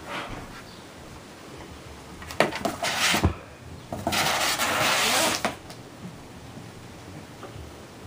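Kittens' paws and claws scrabbling on a cardboard box ramp: a few knocks and scrapes about two and a half seconds in, then a second and a half of continuous scratching on the cardboard.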